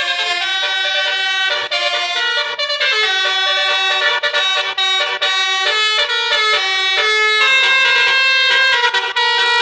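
Bus 'telolet' horn, a multi-trumpet air horn playing a melody: several tones sound together and step from note to note every fraction of a second without a break.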